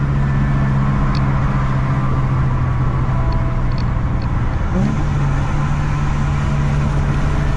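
Infiniti G37 sedan's engine running steadily while driving, as a constant low drone. About five seconds in the pitch glides up briefly and settles a little higher.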